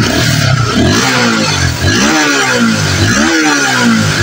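Honda Sonic 150R's single-cylinder four-stroke engine revved in several quick throttle blips, the pitch rising sharply and falling back toward idle each time. These are test revs after a top-end rebuild (rebored cylinder, oversize piston), checking that the engine no longer smokes at high throttle.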